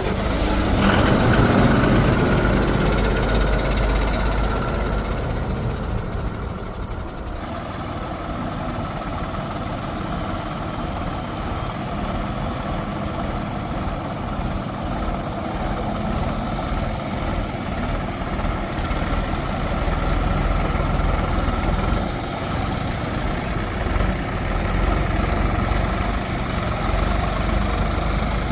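Heavy diesel engine running steadily, a little louder in the first few seconds before settling to an even run.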